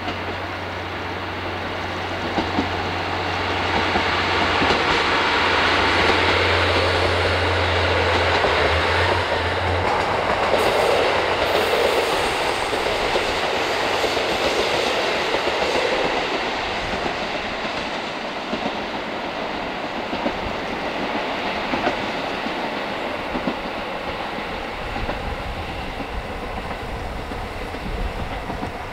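Diesel train passing on the Sekihoku Line, its wheels clicking over the rail joints. The sound swells over the first few seconds and eases off in the second half. A steady low hum underneath stops about ten seconds in.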